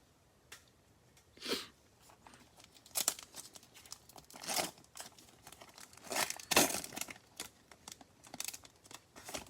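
Foil trading-card pack wrappers being torn open and crinkled in a series of short rips and rustles.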